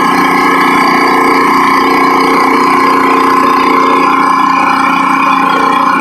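Pressure washer's engine running steadily while a rotary surface cleaner sprays water over a concrete driveway.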